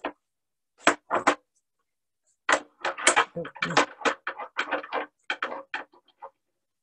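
Pebbles rattling and clicking in a plastic bag as they are handled, and stones knocking together on a glass tabletop as one is set onto a small stack of rocks. The clicks come irregularly, a few about a second in, then a busy run from about two and a half seconds in until about six seconds.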